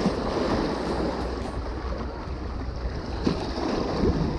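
Seawater sloshing and splashing against shoreline rocks, with wind rumbling on the microphone.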